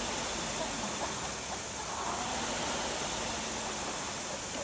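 Two Concept2 indoor rowing machines being rowed hard, their fan flywheels giving a steady rush of air.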